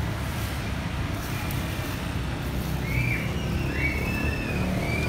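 Steady low rumble of road traffic, with a few faint high chirps in the last couple of seconds.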